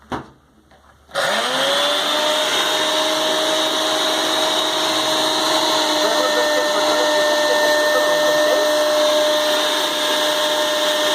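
Household blender switched on at its highest speed setting, level 5: a click, then about a second later the motor spins up with a short rising whine and runs steadily at full speed.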